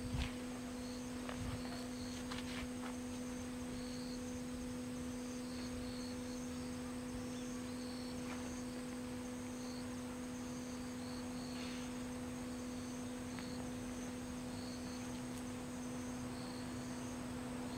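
Insects chirping in short high trills that repeat about once a second, over a steady low hum.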